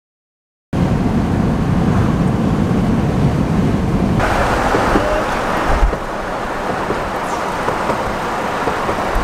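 A brief moment of dead silence, then steady road and engine noise of a car driving at speed. About four seconds in it cuts to a brighter rushing of wind and road noise, which eases a little near six seconds.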